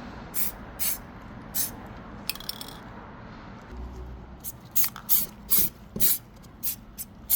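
Conductive coating being sprayed onto a 3D-printed PLA trophy in short hissing bursts. The bursts are spaced out at first and come two to three a second in the second half.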